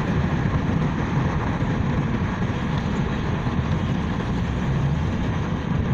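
Steady road and engine rumble of a moving car, heard from inside its cabin.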